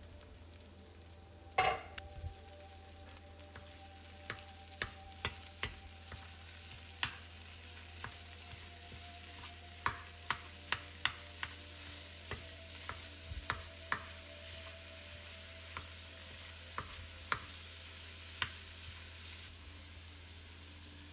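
A metal spoon breaking up ground beef in a nonstick frying pan, giving irregular sharp clicks and taps against the pan, with the faint steady sizzle of frying underneath. A louder knock comes a couple of seconds in, and the taps come most often around the middle.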